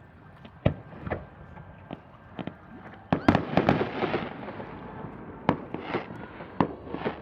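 Fireworks going off: scattered sharp bangs, then about three seconds in a dense run of bangs with crackling for roughly a second, followed by a few more single bangs.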